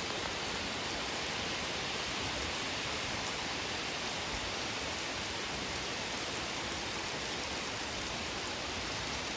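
Steady rain falling: an even, unbroken hiss with no separate drops or other sounds standing out.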